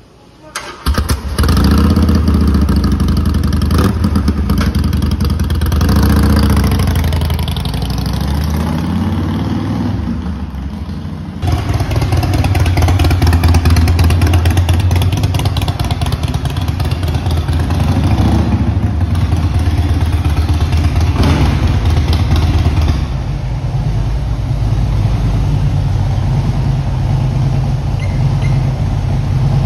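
Harley-Davidson Forty-Eight's 1200 cc air-cooled V-twin on Vance & Hines straight mufflers, cranked on the electric starter and catching about a second in on a freshly fitted battery. It then runs with a loping, hoofbeat-like beat and a few short revs, and settles into a steady idle in the last several seconds.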